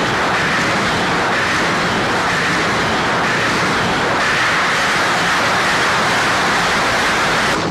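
Pachinko machine video sound effect: a loud, steady rushing roar of a blast, with no music or voice.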